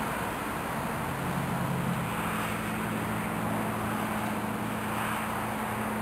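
A vehicle engine running steadily: a low, even hum over a constant hiss of outdoor noise.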